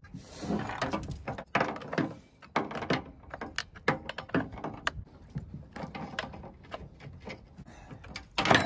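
Irregular metallic clicks and rattles of a Stihl chainsaw's chain and bar being handled as the thrown chain is put back on and the side cover refitted, with a louder sharp knock near the end.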